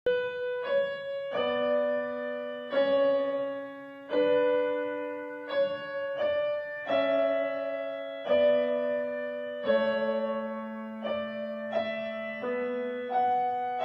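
Slow solo piano music: a gentle melody of single notes and chords struck about every second and a half, each left to ring and fade.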